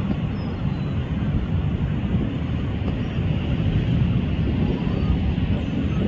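Steady low rumble of wind buffeting the microphone, mixed with the continuous rush of breaking sea surf.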